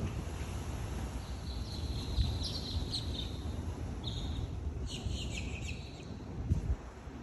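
Outdoor background noise: a steady low rumble, with birds chirping in short high bouts through the middle.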